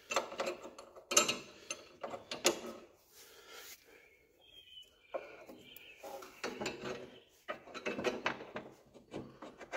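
Light metal clicks and clanks as a steel pin is handled and worked into the mule drive's mounting bracket on a John Deere garden tractor. They come in two clusters with a quieter gap around the middle.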